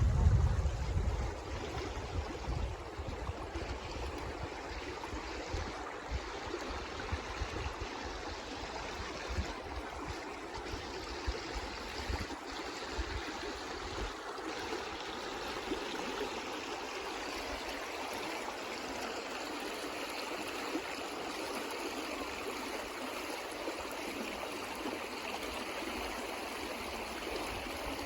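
Water flowing in a stream, a steady rushing, babbling sound. Low rumbling in the first couple of seconds, which fades.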